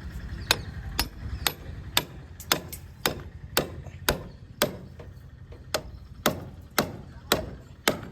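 A hammer striking in an even rhythm, about two sharp blows a second, each with a short ring.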